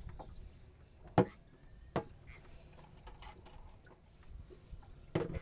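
Two sharp knocks, the first the loudest about a second in and the second just before two seconds, among a few faint clicks and taps over a low steady background hum.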